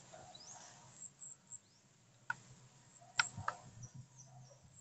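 Faint outdoor ambience: a few short, high chirps and a handful of sharp clicks over a quiet background.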